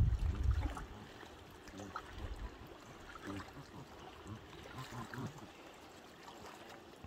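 Faint lapping of lake water at the shoreline, with a gust of wind rumbling on the microphone in the first second.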